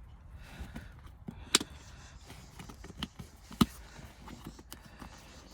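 Hands working a synthetic-leather seat cover onto a truck headrest, with faint rubbing and two sharp clicks, about 1.5 and 3.6 seconds in, plus a few lighter ones.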